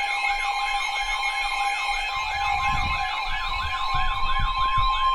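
Emergency alert signal ahead of a flash flood warning broadcast: a siren-like tone sweeping rapidly up and down, about three sweeps a second, layered over steady alarm tones, one of them near 1 kHz.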